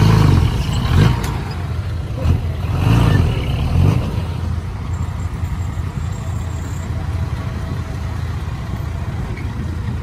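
Heavy diesel engine of earthmoving machinery running, with several loud surges of revving in the first four seconds, then settling to a steady run.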